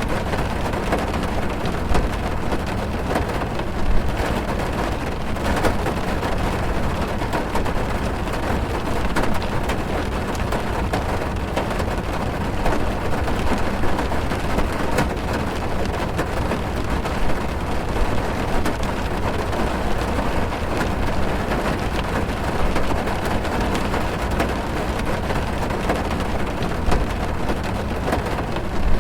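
Heavy rain drumming on a car's roof and windows, heard from inside the cabin: a dense, steady patter of countless drop impacts with a deep, muffled rumble, and now and then a louder knock of a big drop.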